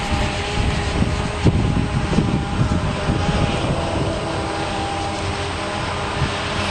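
Heavy diesel silage machinery, a forage harvester and tractors, running steadily, with a steady whine over the engine note and uneven low thuds through the first few seconds.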